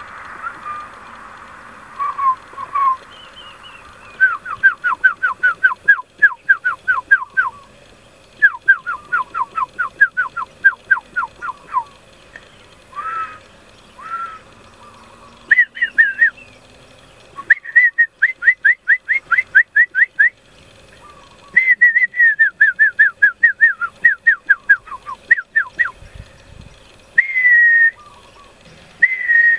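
A man whistling to attract a bird's attention: runs of quick, falling whistled notes, about five a second, each run lasting three to four seconds, with a few longer single whistles near the end.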